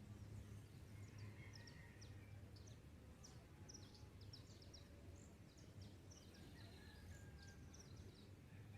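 Faint dawn birdsong: many short, high chirps in quick runs, over a steady low hum.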